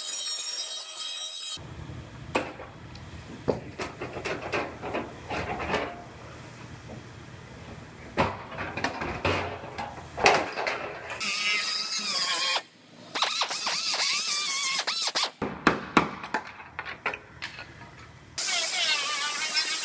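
Air cut-off tool with a small abrasive wheel whining and squealing as it cuts through a car's sheet-steel quarter panel, in several separate stretches. In between come sharp knocks and metal clatter.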